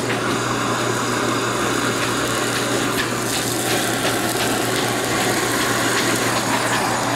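Handheld gas blowtorch burning with a steady hiss as it sears thick pieces of bluefin tuna in a frying pan.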